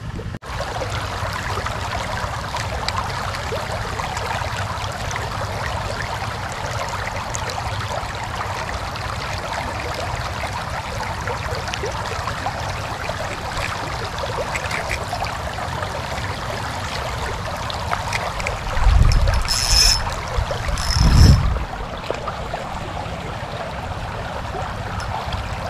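Canal water flowing over shallow riffles, a steady rushing hiss. Two brief louder bumps come near the end, about two seconds apart.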